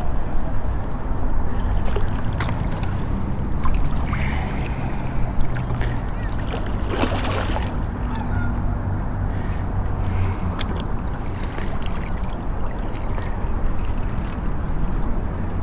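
Steady low rumble of wind buffeting the microphone over moving creek water, with scattered small clicks and a brief splash-like rush about seven seconds in, as a hooked carp is played in to the bank.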